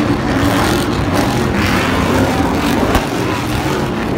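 Stadium Super Trucks' V8 engines running hard as several trucks race around a dirt track, a loud, steady blend of engines, with a sharp click about three seconds in.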